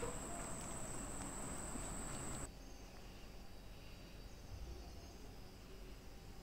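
Faint outdoor background with a steady high-pitched whine that cuts off suddenly about two and a half seconds in, and a few faint chirps.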